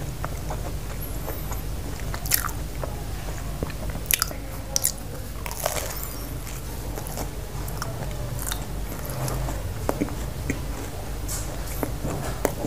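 A person biting and chewing chicken pizza close to the microphone, with sharp crunchy crackles every second or so, loudest in a cluster about four to five seconds in. A steady low hum runs underneath.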